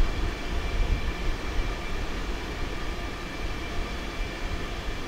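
Steady low rumble with a faint, steady high-pitched whine above it: the background noise along an open-cut subway line while no train passes.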